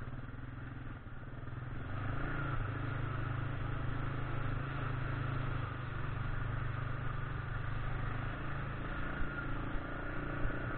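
1999 Yamaha Grizzly 600 ATV's single-cylinder four-stroke engine running steadily as it fords a shallow, rocky river, water splashing up at the front. The engine grows louder about two seconds in.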